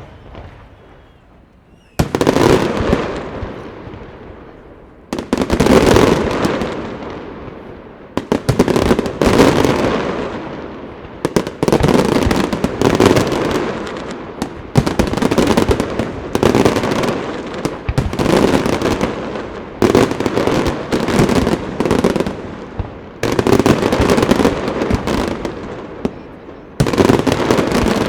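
Aerial fireworks display: salvo after salvo of shells bursting with dense crackling, a new loud volley about every three seconds, each crackle dying away before the next. The first couple of seconds are quieter, before the first big volley.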